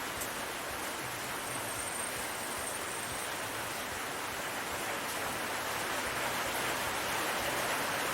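Steady hissing noise with no distinct knocks or clicks, growing slightly louder in the second half.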